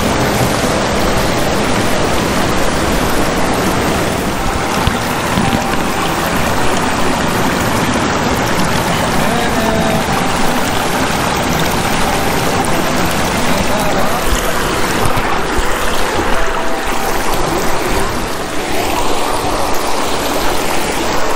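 Mountain stream rushing over rocks, a steady loud wash of water.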